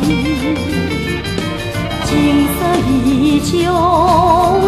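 Mandarin pop song playing: a voice sings a melody with vibrato over a band accompaniment with a steady bass and beat.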